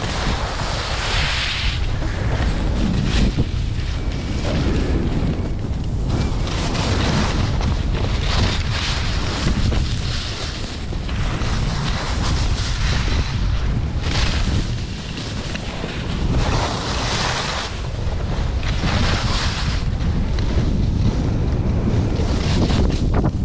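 Wind buffeting the camera microphone as a skier descends, with the hiss of skis scraping over packed snow swelling with each turn, about every two seconds.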